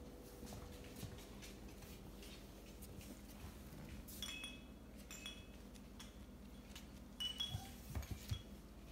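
Puppy's claws clicking and tapping on a hardwood floor as it moves about with a slipper in its mouth, with a few louder knocks near the end.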